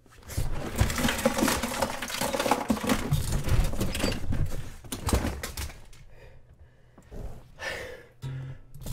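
Rummaging on a shelf of small items: a dense run of clicks, rustles and clatter of objects being handled for about five seconds, then a few softer knocks and shuffles near the end.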